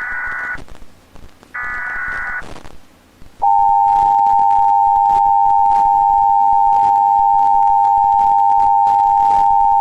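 Emergency Alert System tones: two short bursts of SAME digital header data, a harsh buzzing chatter of rapidly switching high tones, then about three and a half seconds in the EAS attention signal begins, a loud steady two-tone alarm that holds without a break.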